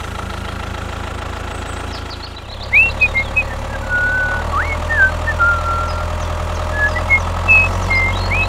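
Tractor engine running steadily, getting louder about two and a half seconds in. Short high whistled chirps come and go over it.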